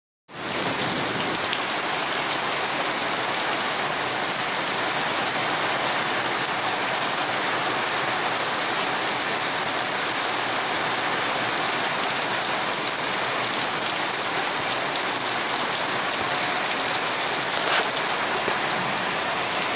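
Heavy rain pouring steadily onto a waterlogged lawn, splashing into standing water and puddles.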